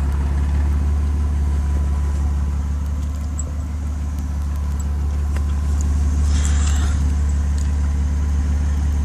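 Stock, catalysed exhaust of a 1991 BMW 325i E36 with its 2.5-litre straight-six (no VANOS) idling steadily: a low, even drone with no revving.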